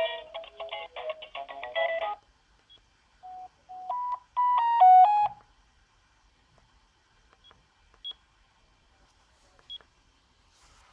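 Sagem my101X mobile phone playing a polyphonic ringtone melody through its small speaker, which stops abruptly about two seconds in. A few short electronic beeps follow, then a brief, louder run of stepped beeping tones. After that only a few faint clicks remain.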